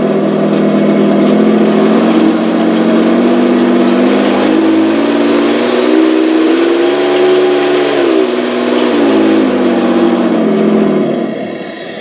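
Simulated Leopard 2 tank engine from a Heng Long TK7.0 sound unit, played through the 1/16 RC tank's small speaker. The engine note revs up about four seconds in, holds, falls back to idle around eight to nine seconds, and dips briefly near the end.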